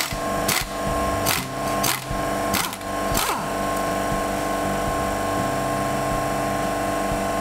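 A hand-held power tool motor running at a steady pitch, with a few sharp metallic knocks in the first three seconds.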